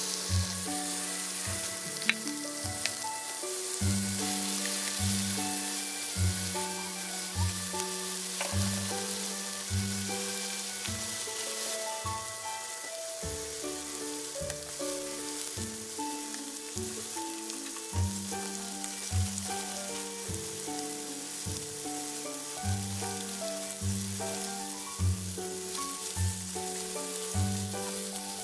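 Chicken thigh pieces and sliced eggplant sizzling steadily as they fry in oil in a hot skillet. Background music with a regular bass line plays over the frying.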